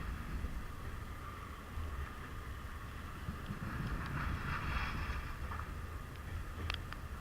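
A train rolling past with a steady low rumble and wheel-on-rail noise, and a couple of sharp metallic clicks near the end. Wind is on the microphone.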